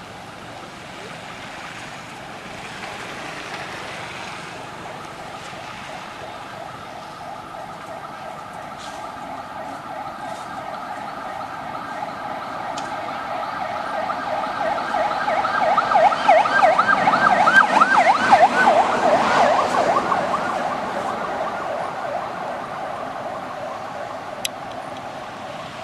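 A passing vehicle's droning, pitched sound swells over several seconds, wavers rapidly in pitch at its loudest, then fades away.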